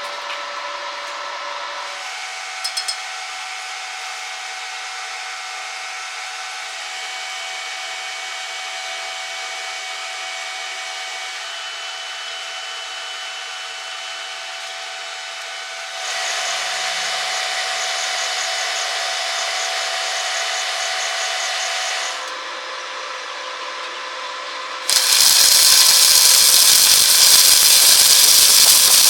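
A power tool runs with a steady whine, stepping up in level for a stretch in the middle. About 25 seconds in it gives way to a much louder, steady crackling hiss, typical of an electric welding arc.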